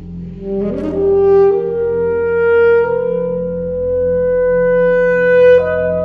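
Alto saxophone enters with a quick rising run, then holds a long note that steps up a little and sustains, leaping to a higher held note near the end. Beneath it a steady low electronic drone from the tape part continues.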